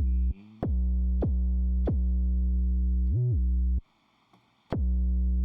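Electronic hip-hop beat played back from a drum machine: a deep synth bass holding long notes that slide up in pitch and back down, with sharp drum hits. It stops a little before four seconds in and starts again about a second later.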